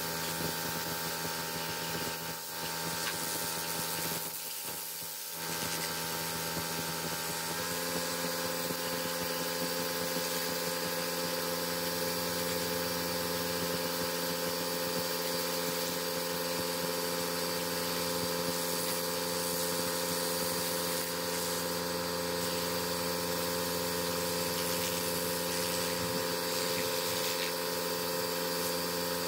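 An electric motor of detailing equipment running steadily, with brief dips in level about two and five seconds in. Around eight seconds in its hum steps slightly higher.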